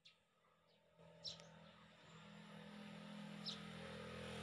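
Faint, short high bird chirps, three of them a second or two apart, over a low engine hum that comes in about a second in and slowly grows louder.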